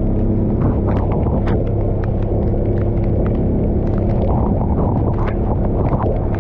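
A vehicle engine running steadily at driving speed in the rain, under a heavy low rumble of wind on the microphone, with scattered sharp ticks of raindrops striking the camera.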